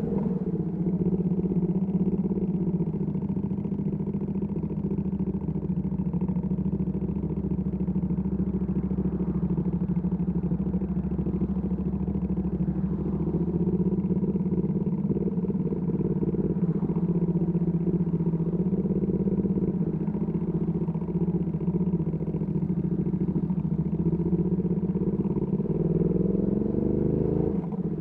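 Ducati Panigale V2S V-twin engine through a Termignoni exhaust, ridden at a fairly steady engine speed, with a brief rise in revs near the end.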